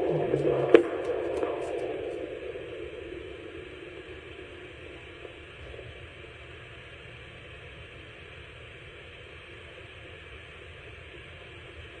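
Doppler blood-flow monitor's speaker giving a hissing, static-like flow sound from a probe on a parrot's leg. The whooshing fades out over the first few seconds, leaving a steady faint hiss, with one sharp click under a second in.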